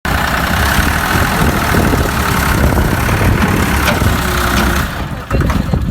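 Tractor diesel engine running steadily and loudly, easing off about five seconds in, with a few short knocks near the end.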